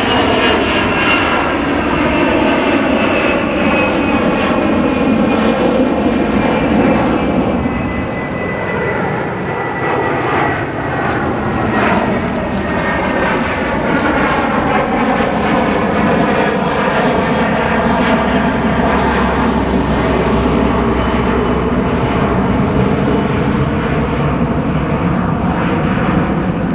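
Airliner engines running loud and steady close by, with whining tones that slide slowly down and then back up as the aircraft passes.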